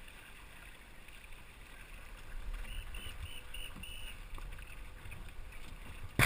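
Water and wind noise around a small sailing dinghy under way: a steady low rumble and hiss. A run of about five short, high tones comes about halfway through, and a sharp knock comes near the end.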